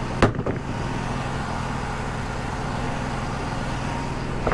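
Wood-Mizer LT35 portable band sawmill and its dust-collector blower running steadily with a low hum, with a sharp knock about a quarter second in.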